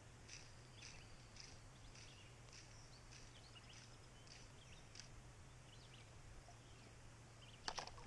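Faint birdsong: short, high chirps repeated several times a second, over a low steady hum. Near the end comes a brief, sharp, louder sound.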